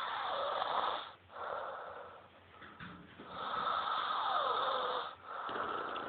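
Snoring: a run of noisy breaths, each about a second and a half to two seconds long with short gaps between. Two of the breaths carry a whistle that falls in pitch.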